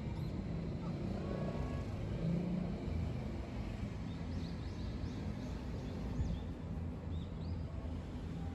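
Outdoor ambience: a steady low traffic rumble, with a few short high bird chirps in the second half.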